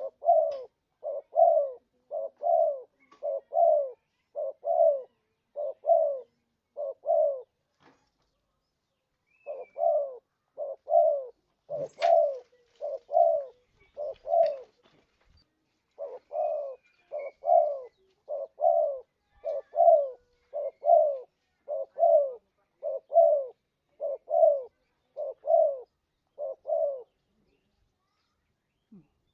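Spotted dove lure call: short cooing notes repeated evenly, about one and a half a second, in long runs broken by a pause of about two seconds near the middle and another near the end.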